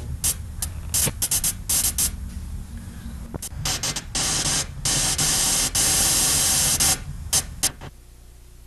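Radio static: crackling bursts of hiss that cut in and out, short and rapid at first, then longer stretches of steady hiss, stopping abruptly near the end to leave only a faint low hum.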